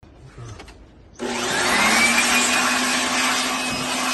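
A small electric or air-driven motor switches on about a second in and runs loud and steady, with a rushing hiss and a whine that rises in pitch as it spins up, then holds.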